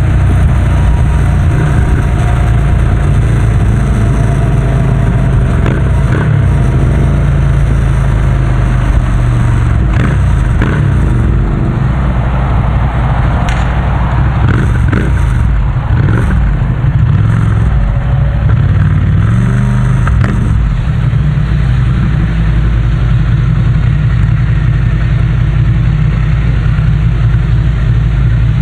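Ducati Scrambler's air-cooled 803 cc L-twin through a Termignoni full-system exhaust, running at low speed. The engine note dips and rises between about twelve and twenty seconds in, then settles into a steady low note.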